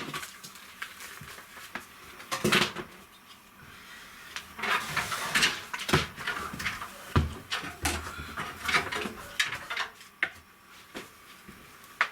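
Scattered knocks, clunks and scraping as things are handled and moved about in a cramped room, with a louder stretch of rustling and clattering about five seconds in.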